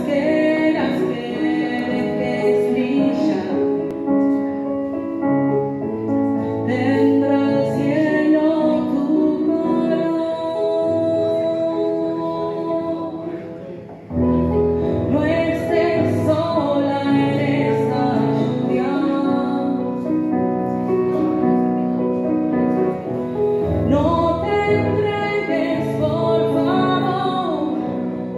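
A woman singing a slow song with digital piano accompaniment, played live. About halfway through the music thins out briefly, then comes back fuller with deeper bass notes under the voice.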